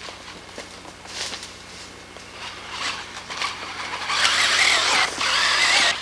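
Scattered rustles, then about four seconds in a radio-controlled toy car's electric motor starts whining loudly and keeps running, its pitch wavering.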